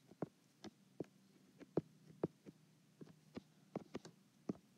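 Stylus tapping and stroking on an iPad's glass screen during handwriting: irregular soft clicks, two or three a second, over a faint steady low hum.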